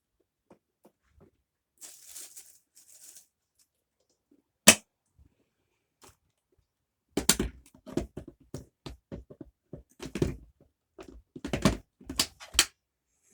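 Handling of a Shark vacuum cleaner's dust canister while it is emptied: a brief soft rustle, a single sharp click, then a run of knocks and clatters over the last six seconds.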